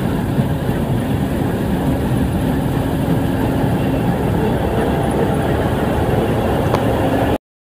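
2011 Gleaner R55 combine harvester running close by while cutting wheat: a steady drone of engine and header with a faint steady hum. It cuts off abruptly near the end.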